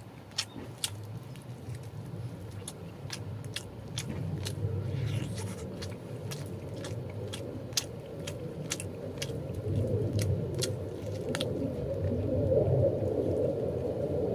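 Chewing and biting into a wood-fire roast chicken with slightly charred skin, with scattered sharp clicks, over a low rumble that grows louder toward the end.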